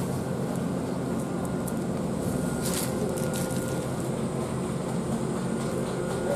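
EF63 electric locomotive humming steadily, a layered machine drone with a couple of thin steady tones over it and a few faint light ticks in the middle.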